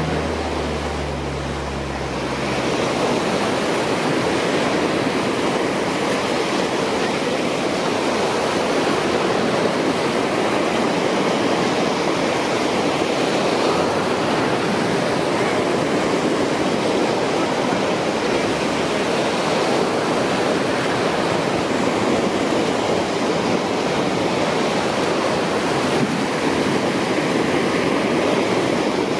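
Steady, even rushing of water with no rhythm or breaks.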